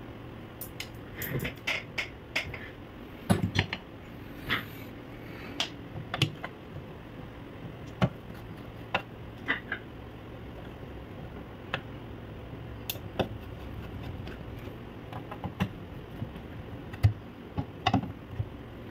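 Irregular small clicks and knocks of a screwdriver and hands fitting a small power-supply board into a metal mixer chassis, over a faint low hum.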